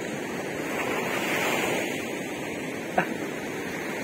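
Surf washing on a sand beach, a steady rushing that swells about a second in and eases off again, with one short click about three seconds in.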